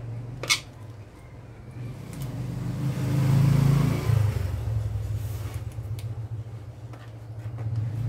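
A motor vehicle passing close by: its engine and road noise swell to a peak about three and a half seconds in and fade away, over a steady low hum. A single sharp click sounds about half a second in.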